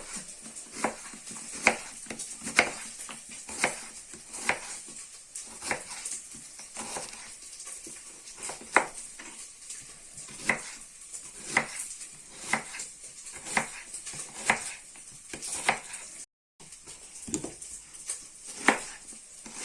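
Knife cutting an onion into half rings on a cutting board, one sharp cut about every second, over a faint steady sizzle of beef fat rendering in the pot.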